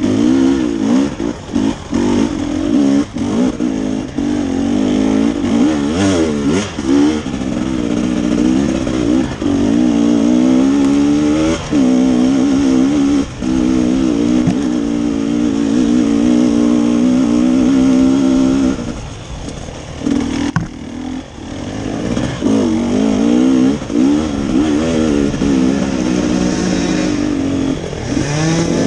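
Enduro dirt bike engine heard close up from the bike itself, revving up and down again and again as the throttle is worked on a climb, easing off briefly about two-thirds of the way through.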